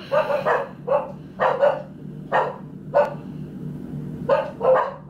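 A dog barking over and over: short barks about twice a second, some coming in quick pairs.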